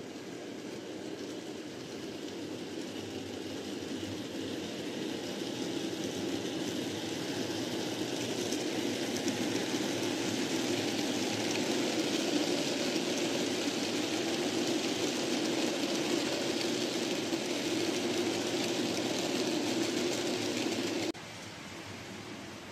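N gauge model locomotive hauling a train of hopper wagons past: a steady whirr and rumble of motor and wheels on the track. It grows louder as the train approaches, then drops away suddenly near the end.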